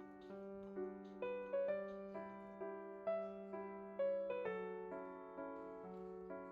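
Background music: a gentle, slow piano melody over a held bass note, with notes struck about twice a second.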